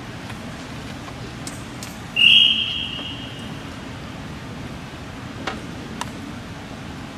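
A single loud, high-pitched, whistle-like tone starts sharply about two seconds in and fades away over about a second, over a steady hall background; two faint sharp knocks follow later.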